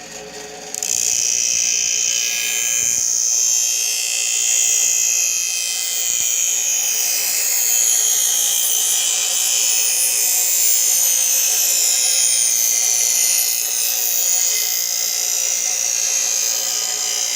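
A machete blade ground against a spinning grinding wheel: a loud, high grinding screech that starts about a second in, its pitch sliding downward again and again.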